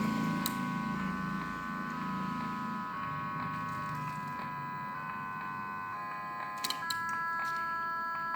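Electronic sound-effect module playing a steady buzzy chord of high tones that shifts in pitch in steps every second or so while its button is held down. There are a few short clicks near the end.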